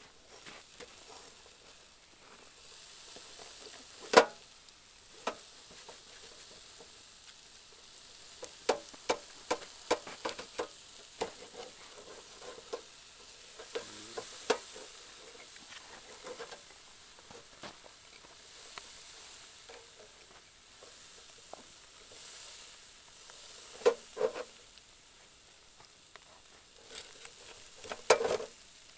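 Spare ribs sizzling on a charcoal grill while a large knife and a meat fork cut through the rack, clinking and scraping on the metal grate. The loudest clinks come about four seconds in, in a quick run a few seconds later, and twice near the end.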